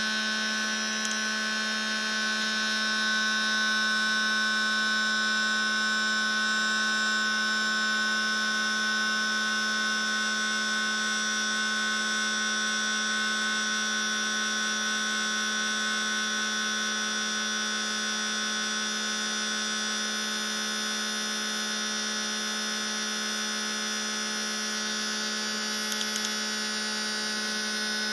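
Electric air compressor running steadily with an even hum, pumping up its tank as the pressure builds.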